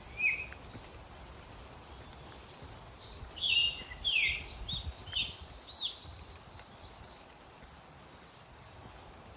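Songbirds singing: bursts of quick, high, repeated chirping notes from about a second and a half in until about seven seconds, over a steady hiss of rain in woodland.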